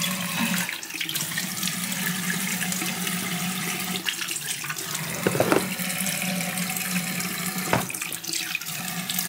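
Bathroom tap running steadily into a sink while a face is washed under it, then shut off abruptly at the end.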